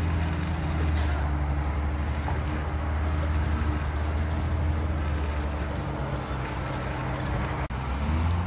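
Steady low engine drone of machinery running on a construction site, with an uneven hiss coming and going on top. It drops out for an instant near the end.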